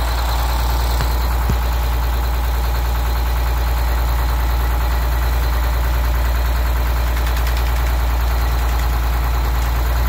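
Detroit Diesel 6-71 two-stroke inline-six diesel idling steadily while its number 1 injector is held out of firing. The engine speed does not drop, the sign that this injector is bad and not firing.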